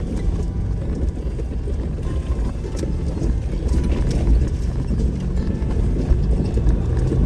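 Off-road vehicle driving over a rough dirt trail: a steady low rumble with irregular knocks and rattles.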